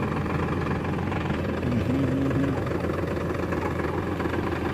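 Powertrac Euro 50 tractor's three-cylinder diesel engine idling steadily.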